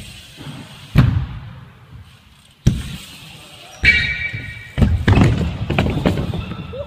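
BMX bikes and riders crashing onto skatepark ramps: a series of sharp thuds about a second apart, followed by a quick run of clattering knocks as a bike and rider come down, echoing in a large indoor hall.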